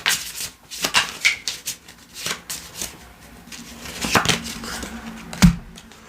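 Tarot cards being shuffled and handled: a run of irregular crisp flicks and snaps, with a louder dull thump near the end.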